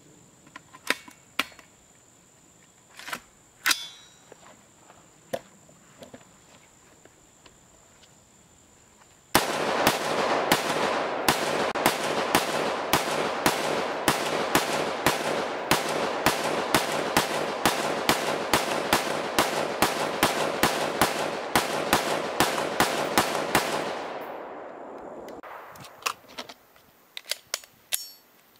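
Clicks of an AR-15-style rifle and its magazines being handled. Then, about nine seconds in, a long string of rapid semi-automatic shots from a rifle fitted with a Bear Creek Arsenal lightweight bolt carrier group, two to three shots a second for about fifteen seconds, before the firing stops and handling clicks come back near the end.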